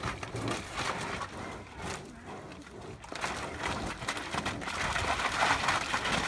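Two white rhinoceroses sparring: their horns and heads knock together in irregular clacks and thuds as they shove each other.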